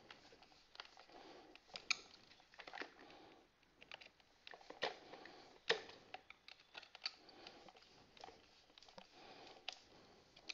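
Faint scattered clicks and short scrapes of hands and a small screwdriver working on a plastic toy robot, tightening the battery cover shut. The two loudest clicks come about five and six seconds in.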